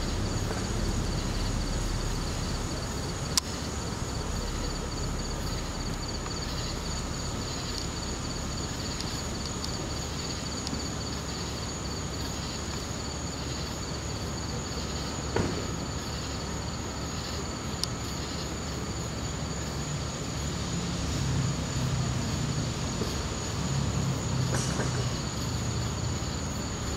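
Night insects chirping steadily in two high, pulsing tones over a continuous low rumble, with a few sharp clicks.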